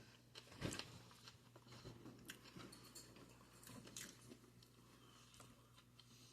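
Faint, close chewing of a piece of sushi roll: soft mouth clicks scattered throughout, one a little louder just under a second in.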